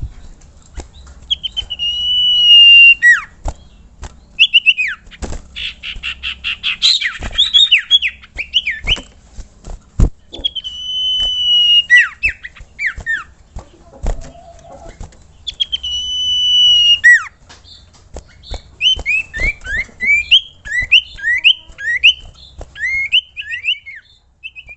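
Common iora calling: long drawn whistles held at one high pitch and then dropping at the end, repeated several times, with a loud harsh chatter about six seconds in and a quick run of short falling chirps near the end. Sharp clicks are scattered throughout.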